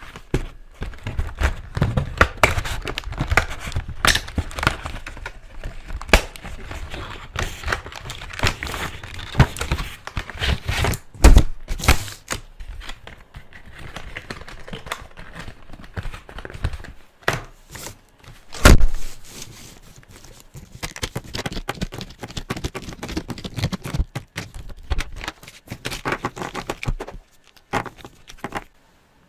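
Close-up handling of felt-tip pens and art supplies: rustling and crinkling, quick clicks and taps, and a few sharp knocks, the loudest about eleven and nineteen seconds in.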